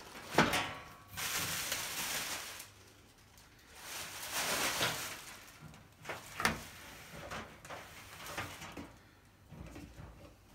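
Unpacking a new metal tool chest: wrapping rustling twice, with a knock near the start, a sharp click around the middle and lighter knocks and clicks as the chest and its parts are handled.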